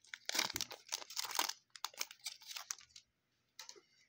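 Football trading-card pack wrapper being torn open and crinkled by hand. A run of sharp crackles lasts about three seconds, followed by one short rustle near the end.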